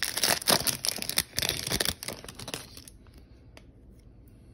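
Wrapper of a Panini Prizm basketball card pack being torn open and crinkled, a dense crackling rustle that stops about three seconds in.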